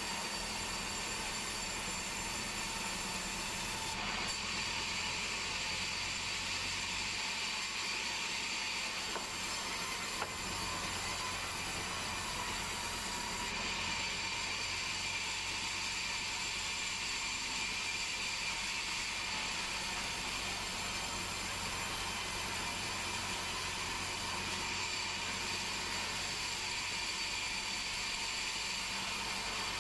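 Band sawmill running, its blade sawing through a large meranti log: a steady hiss with a constant high whine.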